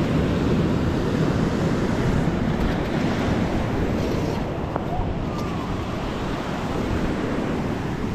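Wind rumbling on the microphone over small waves breaking and washing up the beach, a steady noisy roar with no clear events.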